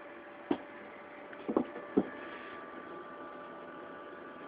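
Steady electrical hum from a homemade lab power unit running with its cooling fans, broken by three short knocks about half a second, a second and a half and two seconds in.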